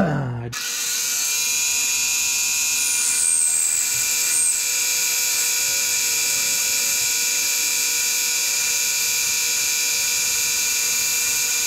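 VEVOR mini metal lathe running with a steady whine, its cutting tool turning a bar in the chuck and throwing off chips.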